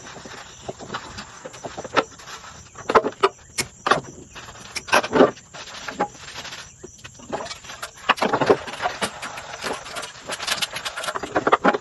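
Dishes, pots and pans knocking and clattering as they are washed and stacked at a sink, in sped-up footage: an irregular run of short clinks and knocks, the loudest a few seconds apart.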